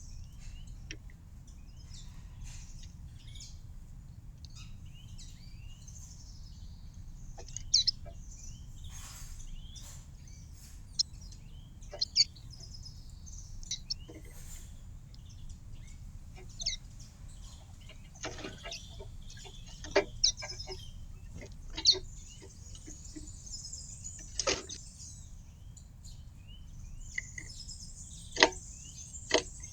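Small garden birds chirping and twittering in short, scattered calls, broken by a dozen or so sharp taps that are the loudest sounds, over a steady low background rumble.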